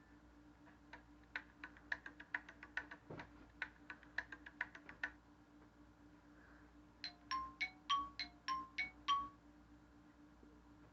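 A run of faint, irregular clicks for about four seconds, then a quick sequence of about eight short electronic beeps on alternating pitches: an iPod touch 4th gen playing classic iOS tones through its small speaker.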